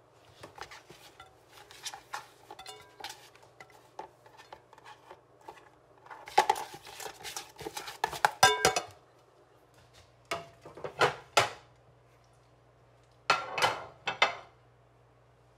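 A ceramic plate clinking and scraping against a granite countertop, with cutlery-like clicks in scattered bursts; the loudest clatter comes about six to nine seconds in, followed by two shorter bursts.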